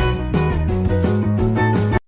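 Background music with strummed guitar and bass and a steady beat.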